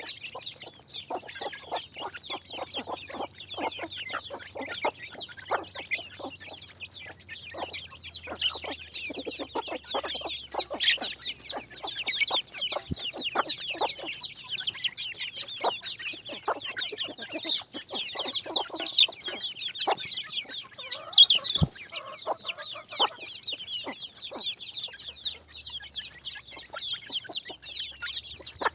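A flock of chickens calling: many short, high chirping calls overlap without a break, among lower clucks, with one louder call about two-thirds of the way in.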